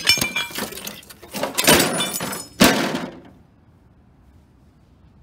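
Thick CRT picture-tube glass breaking and shards clattering on concrete: three sharp crashes with a glassy ring in the first three seconds, the last the loudest.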